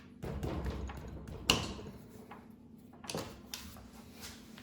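Tool and handling noises on a small motorcycle engine as its 14 mm cam chain tensioner bolt is worked loose: rustling, then a sharp click about a second and a half in and a smaller knock about three seconds in.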